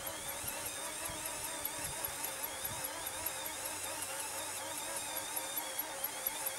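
Lego electric motor and gear train running the moving landscape: a steady whine that wavers up and down a few times a second, with a light, even clicking at about four clicks a second.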